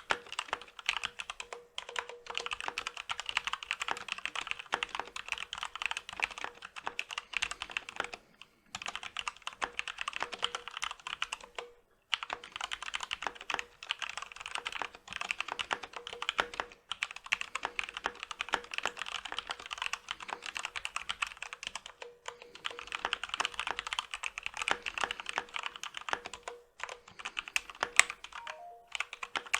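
Continuous fast typing on a Corsair K65 RGB Rapidfire mechanical keyboard with linear Cherry MX Speed Silver switches and stock ABS keycaps, in runs of several seconds broken by short pauses. Now and then a louder clack from a larger key on its greased stock stabilizers.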